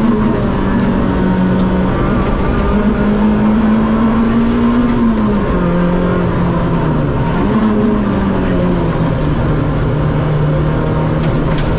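Rally car engine heard from inside the cabin at speed, running at a steady high note that drops about halfway in, rises briefly, then settles lower as the car works through bends. A few sharp ticks sound near the end.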